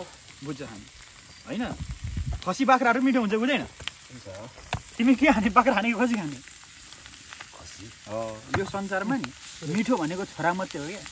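Food sizzling and crackling over a wood and charcoal fire, a steady low frying hiss with small pops. Over it come several short bursts of a man's voice without words.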